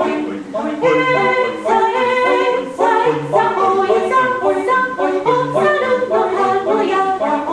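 Music with singing: a sung theme tune, the voices carrying a melody that steps from note to note.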